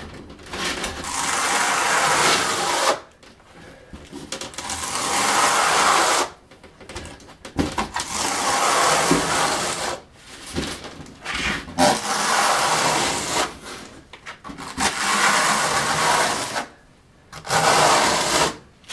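Steel notched trowel scraping through a bed of thinset mortar on a subfloor, combing it into uniform ridges. There are about six long strokes of two to three seconds each, with short pauses between them.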